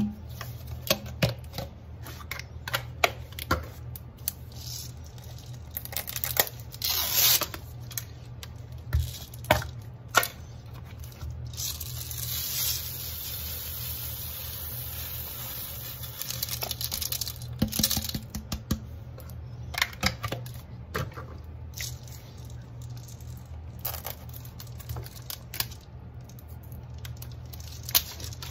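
Laundry scent-booster beads pouring from a plastic bottle into a glass canister, the small beads rattling and pattering against the glass and onto the pile. There are scattered clicks of the bottle and cap against the jar. About twelve seconds in, a steady stream of beads runs for several seconds.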